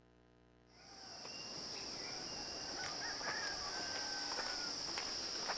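After a brief near silence, a steady high-pitched insect drone fades in and holds, with a few short bird chirps over it.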